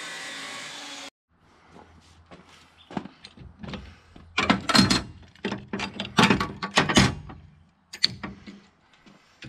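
Abrasive chop saw cutting 3/16-inch steel flat bar, a steady grinding whine that cuts off about a second in. Then steel pieces and metal clamps being handled on a steel welding table: irregular clanks and knocks, the loudest in the middle of the stretch.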